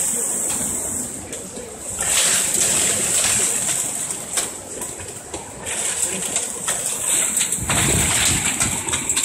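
Severe thunderstorm: rain and hail pelting down in a dense hiss, with many sharp hits, and wind gusting. Wind buffets the microphone in a low rumble in the last second or two.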